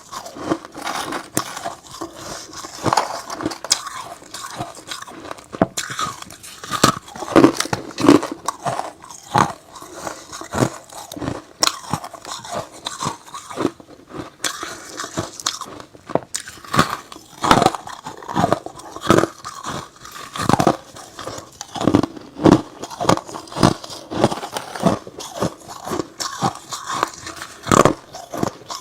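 Close-miked biting and chewing of hard ice and freezer frost: loud, sharp, irregular crunches, several a second.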